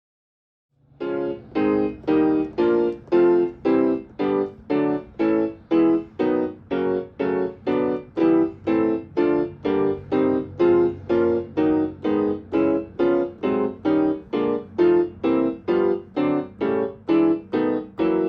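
Omnichord OM-250M electronic instrument playing an even run of repeated pitched chords, about two a second, starting about a second in.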